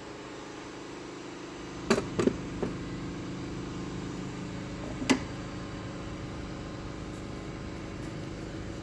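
A few sharp metallic knocks and clicks from tools and parts being handled: a quick cluster about two seconds in and one louder knock about five seconds in, over a steady machine hum that grows louder about two seconds in.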